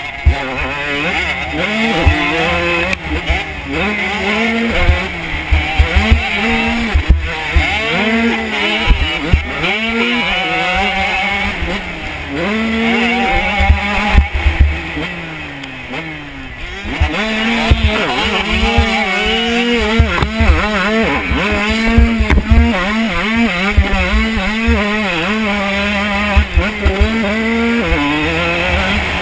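Honda CR125 two-stroke single-cylinder motocross engine, heard from on the bike, revving hard and dropping back again and again as the rider works the throttle and shifts. Low thuds run underneath, and the engine eases off for a couple of seconds around the middle.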